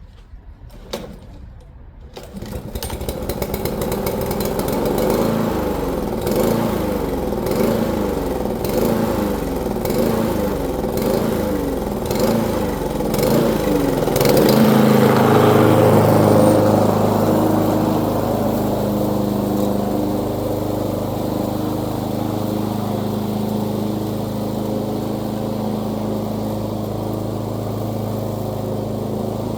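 Lawn mower's small engine starting after a couple of clicks about two seconds in. It runs with a wavering, surging pitch, then settles into a steadier, louder run about halfway through.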